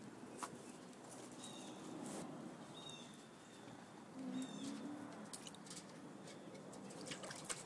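Faint sounds of raccoons at a metal water tub: scattered small clicks and taps, a few short high chirps, and a brief low pitched sound a little past the middle.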